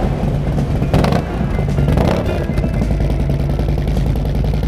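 Harley-Davidson FLHTC's V-twin engine running at idle through a freshly installed D&D 2-into-1 Boss Cat exhaust, with a rich, mellow note. It briefly gets louder twice, about one and two seconds in, over background music.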